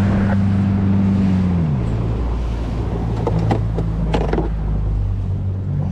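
Small boat's engine running steadily, then dropping in pitch about two seconds in as it is throttled back, and running on at the lower speed. A few short knocks and clatters inside the boat near the middle.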